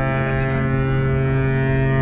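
Cruise ship's horn sounding one long, steady, deep blast.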